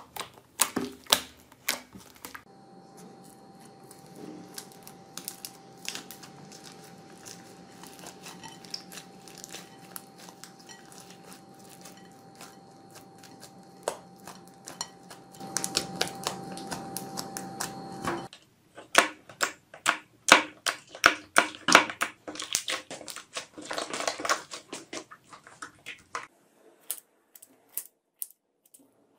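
Hands pressing and poking slime, making quick sticky pops and crackles. In a quieter middle stretch there is soft squishing over a faint steady hum. Near the end, scissors snip through a firm slime.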